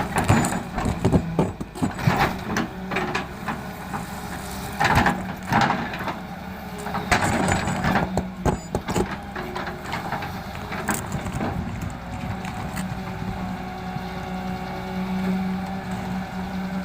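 Excavator's diesel engine running steadily while gravel clatters and crunches in a string of sharp impacts, thick over the first half and thinning out later, as the bucket digs and dumps stones into a dump truck's bed.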